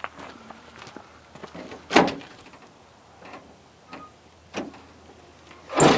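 A sharp knock about two seconds in, then near the end the latch of a Ford pickup's tailgate is released and the tailgate swings down open.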